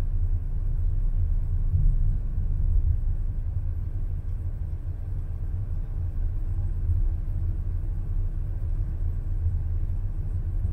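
Steady low rumble of a car driving slowly: engine and road noise heard from the vehicle.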